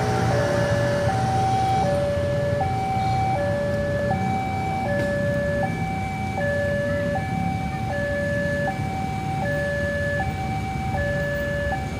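Railway level-crossing warning alarm ringing, a two-tone electronic signal that alternates steadily between a lower and a higher tone, each held about three quarters of a second, warning of an approaching train. Low traffic rumble underneath.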